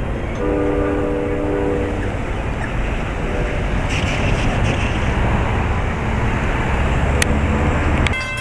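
Steady low rumble of wind and passing-train or traffic noise on the microphone, with a short chord from a horn about half a second in that lasts about a second and a half. Near the end the sound cuts abruptly to the repeated ringing of a grade-crossing bell.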